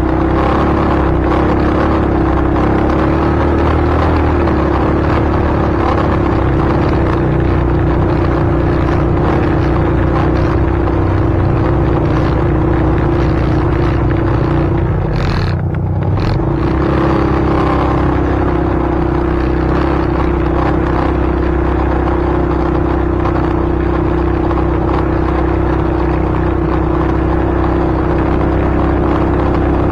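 Steady rumble of a running vehicle with a constant low hum, dipping briefly about halfway through.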